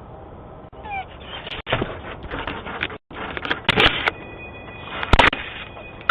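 An animal scuffling and knocking against a video doorbell close to its microphone, with a short high call about a second in. There are several sharp knocks, the loudest about four and five seconds in.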